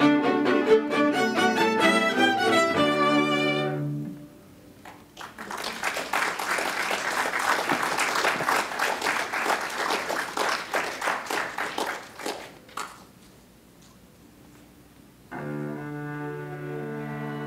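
A string orchestra of violins and cello plays a phrase that ends about four seconds in. Applause follows for about seven seconds. After a short hush the strings start again on low held notes.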